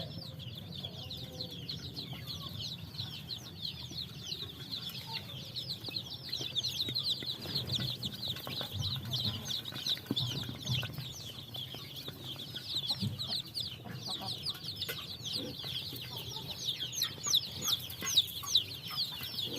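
Baby Javanese chicks peeping continuously, many short, high, downward-slurred peeps overlapping, growing denser and louder near the end.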